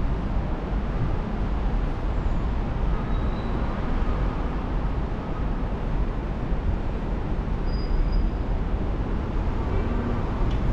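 Steady outdoor city background noise: a low rumble with a fainter hiss over it, and a couple of faint, short high chirps.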